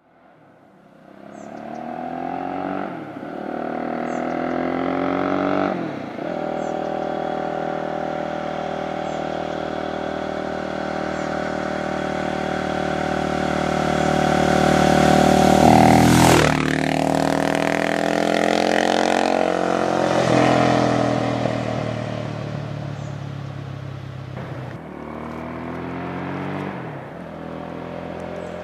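2000 KTM 620 LC4's 609 cc single-cylinder four-stroke engine accelerating hard on the road, its pitch climbing through the gears with short breaks at each shift. It grows louder over the first few seconds and is loudest just past the middle, where the pitch drops sharply before climbing again. It then eases off somewhat toward the end.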